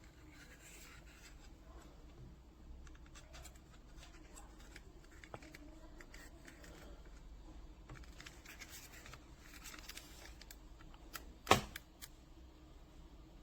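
Small handling noises, a scatter of light clicks and rustles, with one loud sharp click about eleven and a half seconds in.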